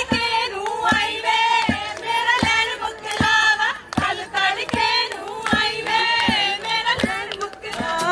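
Background music: a song with a singing voice over a steady beat, one stroke about every three quarters of a second.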